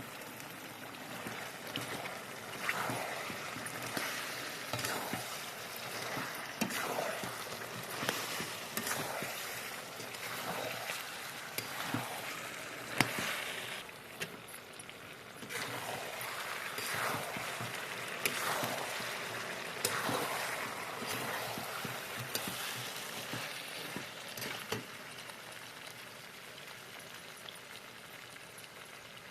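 Food sizzling and crackling in hot oil in a cooking pan, with repeated louder bursts through the first two-thirds that ease off near the end.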